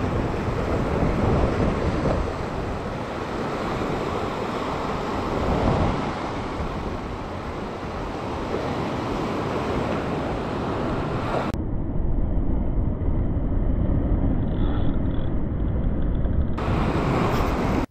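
Wind buffeting the microphone over surf washing against coastal rocks, a steady rushing noise with a heavy low rumble. Past the middle it turns abruptly muffled for about five seconds, then returns to full brightness.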